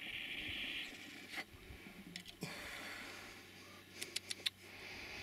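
Water bubbling in a glass fab-egg dab rig as a dab is drawn through it, stopping about a second in. A soft hiss follows, then a quick run of sharp clicks near the end.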